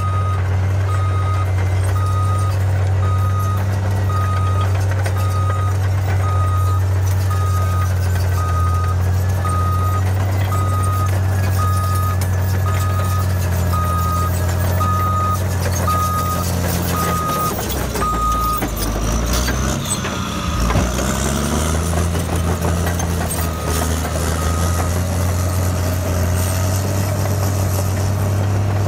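Caterpillar D7R Series II bulldozer's diesel engine running under load while its backup alarm beeps about once a second as it reverses. About two-thirds of the way through the beeping stops and the engine note dips and rises as the dozer changes direction. A few more beeps come near the end.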